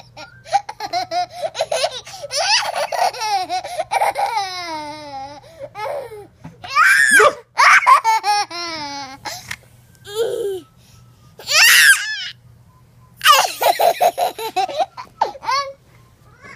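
A toddler laughing in repeated fits of high-pitched giggles, with short pauses between bursts, stopping shortly before the end.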